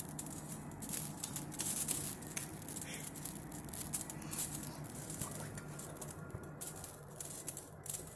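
A hand mixing damp ragi flour in a steel bowl, rubbing and crumbling it to spread the sprinkled salt water: soft, irregular rustling with small clicks. A steady low hum runs underneath.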